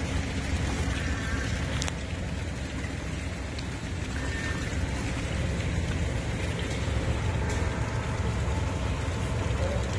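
Steady rain falling on a flooded street, a dense, even hiss.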